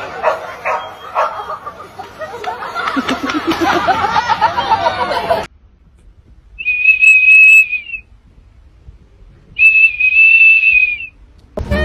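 A small blue plastic whistle held in a golden retriever's mouth sounds two long, steady, high blasts, each about a second and a half, a couple of seconds apart.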